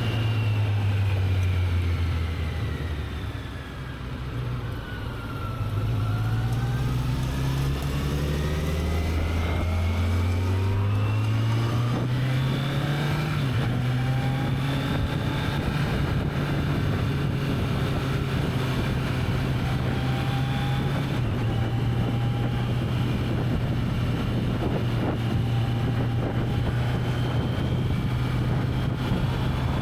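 Kawasaki Z900's inline-four engine through its stock exhaust under way. The revs fall over the first few seconds and the engine goes quieter, then they climb steadily as the bike accelerates, and it settles into a steady cruise from a little under halfway in.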